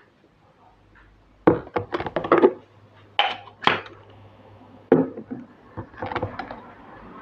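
Metal coffee gear being handled on a countertop: a stainless hand coffee grinder and an aluminium moka pot picked up and set down. It makes a run of sharp knocks and clinks that come in clusters, about one and a half seconds in, around three to four seconds, and again near five and six seconds.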